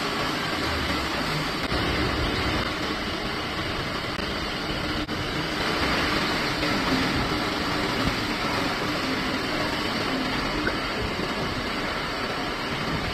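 Steady factory machinery noise: a constant hum and hiss with a faint low steady tone, unchanging throughout.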